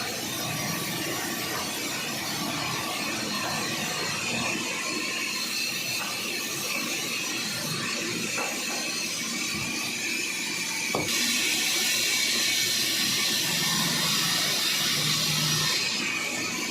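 Sawmill band saw cutting through a large sheesham (Indian rosewood) log, a steady mechanical hiss and whine. The cutting gets louder and brighter about two thirds of the way in, then eases off again near the end.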